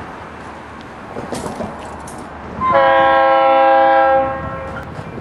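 Air horn of an approaching CSX freight locomotive, sounding one long blast of about a second and a half a little under three seconds in, over a steady rumble.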